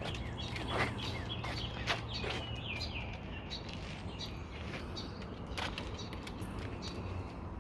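Birds chirping in short, scattered calls, over a steady low hum, with a few sharp clicks.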